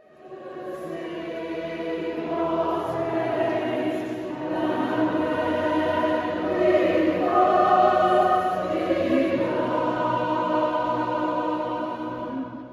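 Choir singing slow, sustained choral music, several voices in harmony. It fades in over the first couple of seconds and fades out at the end.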